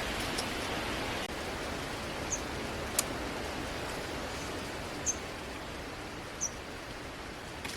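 Steady hiss of falling rain, with three short high chirps and one sharp click about three seconds in.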